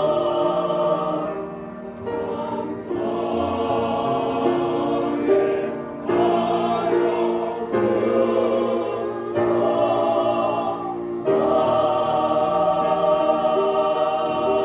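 Mixed church choir singing the closing phrases of a slow Korean hymn with piano accompaniment, in several short sung phrases, then a long held final chord from about three quarters of the way in.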